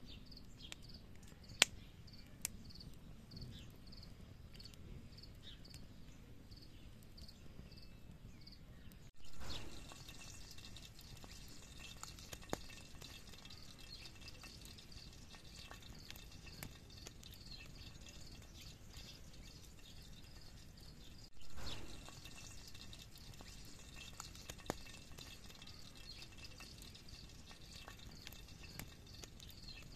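Campfire crackling with scattered sharp pops, and chicken fat dripping and sizzling in the pan below. Crickets chirp about twice a second at first, giving way to a denser insect buzz after a cut about nine seconds in. Two brief louder rushes of noise come about nine and twenty-one seconds in.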